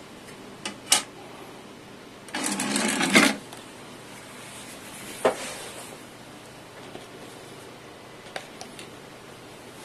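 Rotel RCD-1072 CD player loading a disc: two clicks as the disc is set into the open tray, then the tray motor draws the tray shut for about a second, ending in a clunk. A single sharp click follows about two seconds later, then a few faint ticks as the drive reads the disc.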